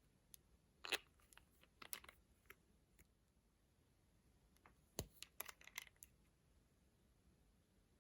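Two quick clusters of small sharp clicks and crackles, about a second in and again around five seconds in, like small plastic makeup cases being handled and opened.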